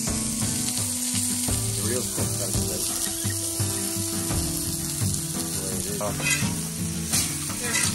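Floured fish fillets and sliced potatoes frying in oil on a hot flat-top griddle, a steady sizzle.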